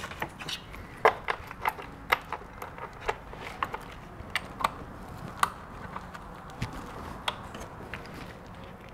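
Hand ratchet clicking on its back-strokes as the rear mounting bolt of an EGR valve is run in on a long socket extension. The clicks are sharp and irregular, two or three a second at first and fewer later.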